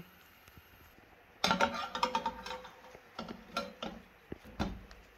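Slotted spatula knocking and scraping against a ridged nonstick grill pan as a bread slice is lifted and turned. There is near silence for about the first second and a half, then a run of short clicks and knocks.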